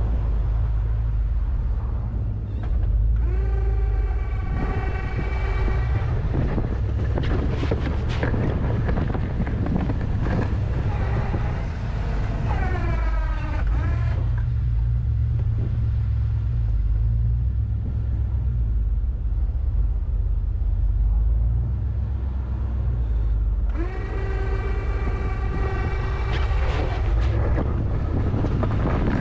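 Pickup truck driving through snow with a steady low engine and road rumble. Held high squealing tones come and go over it: a few seconds in, a wavering one near the middle, and again near the end.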